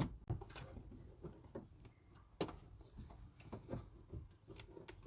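Faint, scattered clicks and light taps of small parts being handled inside an opened car door, as the lock rod is worked onto the door handle clip.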